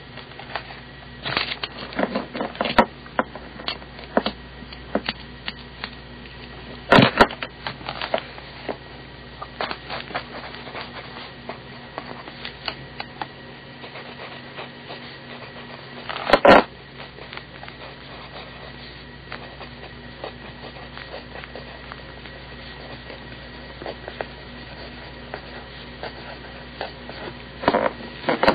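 Old BIC mechanical pencil with 0.7 mm lead writing on paper: a run of small scratchy strokes and taps, with two louder knocks about seven and sixteen seconds in, over a steady low hum.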